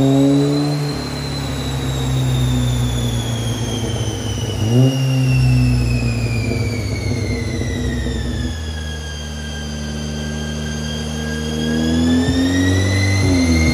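Seat Leon Cupra 280's 2.0-litre turbocharged four-cylinder engine running under revs, heard at its exhaust tailpipes. The engine note flares briefly three times: at the start, about five seconds in, and near the end. Over it runs a high whine that falls slowly and then rises again near the end.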